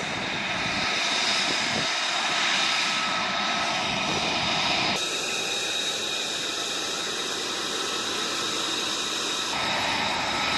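F-35 Lightning II fighter's jet engine running on the ground: a steady rush with a high-pitched whine. The sound shifts abruptly about halfway through and again near the end.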